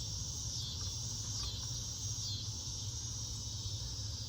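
Steady chorus of insects chirping in the background, a high-pitched trilling that swells and fades in slow pulses, over a low steady hum.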